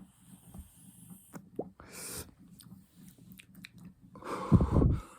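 A person's breathing after a long hit on a cannabis vape pen: small mouth clicks and a short breath about two seconds in, then a loud, rough exhale about four seconds in.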